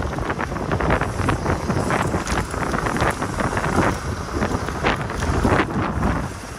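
Heavy wind buffeting the microphone of a rider moving at speed on an electric dirt bike, a loud, uneven rush with irregular gusts.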